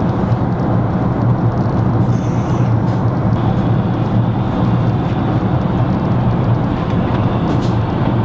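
Steady low rumble of engine and airflow noise inside an airliner cabin in flight, with a constant hum in the lows.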